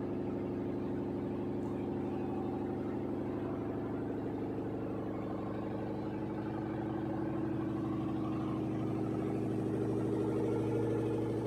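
LG 7 kg top-load fully automatic washing machine spinning its drum at full speed in a dry-only cycle: a steady whirring hum with even tones, growing slightly louder toward the end.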